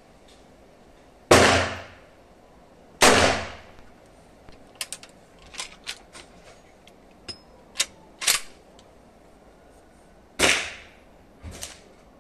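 Winchester 1873 lever-action rifle firing three shots, the first two under two seconds apart and the third about seven seconds later. Between them come the metallic clicks and clacks of the lever being worked and a spent case being ejected.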